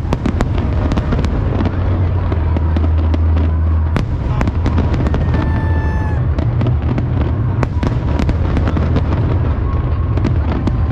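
Fireworks display: a continuous run of sharp bangs and crackles over a steady low rumble, with a brief high tone about halfway through.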